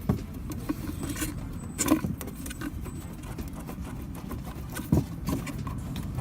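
Toyota Etios sedan's suspension knocking and rattling over a steady low road rumble as the car moves, with a few sharp clunks, the loudest about two seconds in and about five seconds in. The dealer holds this noise to be a characteristic of the car, not a defect.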